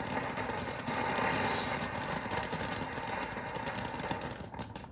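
A lit ground firework hissing and crackling steadily as it sprays sparks, dying down near the end.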